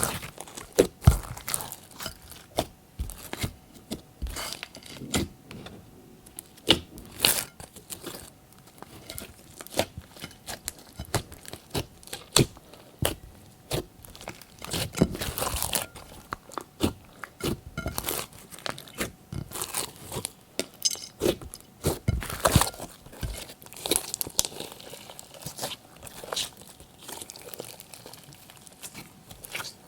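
Glossy slime being kneaded, pressed and stretched by hand, giving irregular sticky pops and crackles as air pockets burst.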